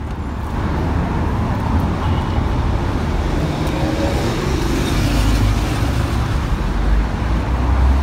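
Street traffic: a steady low rumble of passing cars and other vehicles, slightly stronger in the second half.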